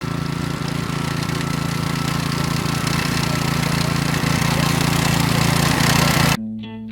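The engine of a Eurosystems P70Evo walk-behind multi-tool machine with its cutting bar runs steadily, with a dense high clatter over the engine note, growing slightly louder. It cuts off abruptly near the end, and guitar music begins.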